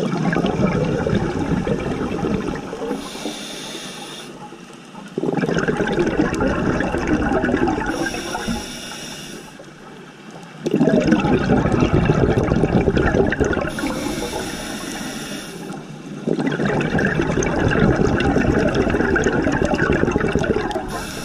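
Scuba diver's regulator breathing underwater: four long bursts of exhaled bubbles, about one every five and a half seconds, each fading out and followed by a short thin hiss as the diver inhales through the regulator.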